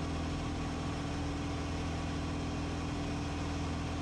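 Van's RV-14's four-cylinder piston engine and propeller running steadily in cruise flight, heard inside the cockpit under the bubble canopy: an even drone that does not change.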